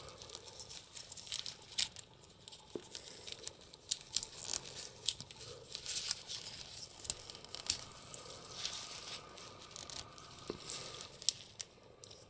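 Faint, scattered clicks and light scraping of a hard plastic action figure and its small plastic ray gun being handled and fitted together.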